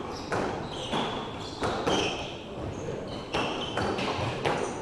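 Squash ball knocks, sharp and irregular with an echoing tail, mixed with short high squeaks of court shoes on the hardwood floor.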